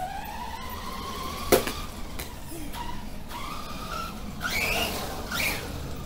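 Brushless motor of a Remo Hobby Dinosaurs Master 5 RC monster truck on a 3S battery, whining and rising and falling in pitch as the truck speeds up and slows. There is a sharp knock about a second and a half in.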